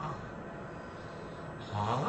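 Loud, pitched snoring. One snore tails off with a falling pitch at the start, then comes a quieter stretch of noise, and about three-quarters of the way in the next snore begins, rising in pitch.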